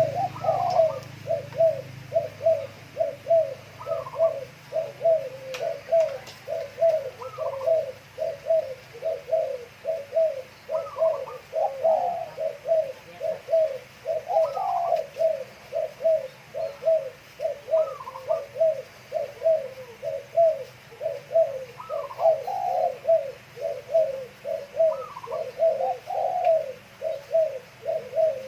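Doves cooing: a continuous run of low coos, about two a second, with a higher rising-and-falling phrase every few seconds.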